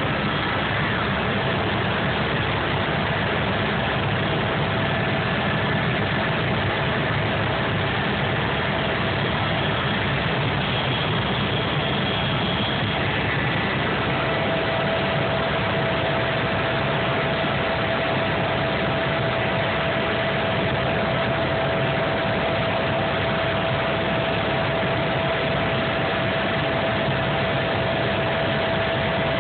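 Helicopter engine and rotor running steadily in flight, heard from inside the cabin, with a steady whine that grows stronger about halfway through.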